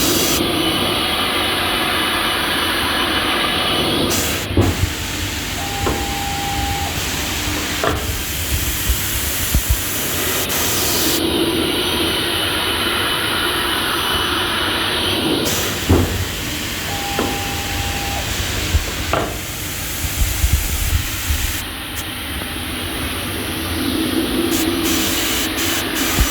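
Automatic aluminium-angle cutting machine running through its cutting cycle with a steady hissing noise. About every 11 seconds the same sequence comes round: a sharp knock, a short steady tone and a few clicks.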